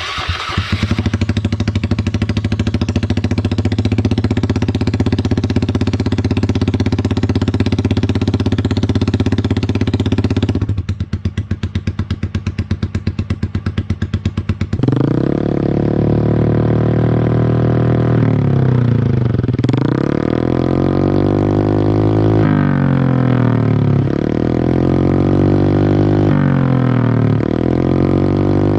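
Motorcycle engine running through an aftermarket 'samlong' drilled-baffle exhaust. It holds steady for about ten seconds, drops to a lumpy idle, then is blipped up and down repeatedly from about halfway through.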